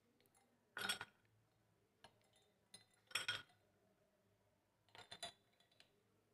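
Ice cubes clinking into a glass of juice, then a metal spoon clinking against a glass bowl: three short clinks a couple of seconds apart.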